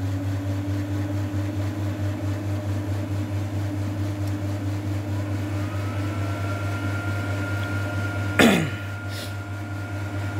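A 1 kW VHF linear amplifier running just after switch-on: a steady hum from its power supply and cooling fans. Two thin whines rise in pitch and then hold, one at the start and one about halfway, as the fans spin up. A short sharp noise comes about eight seconds in.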